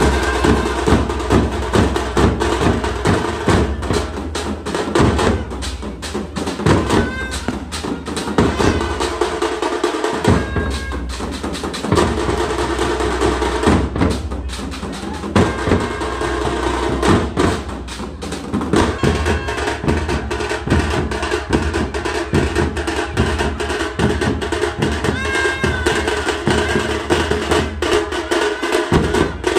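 A street band of large stick-beaten drums and metal drums playing a fast, loud, continuous rhythm.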